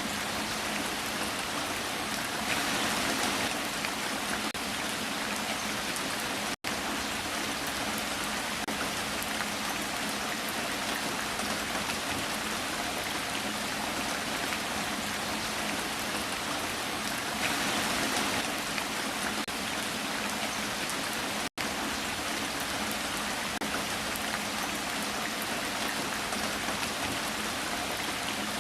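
Heavy rain falling steadily, an even hiss of drops that swells slightly twice and cuts out for an instant twice.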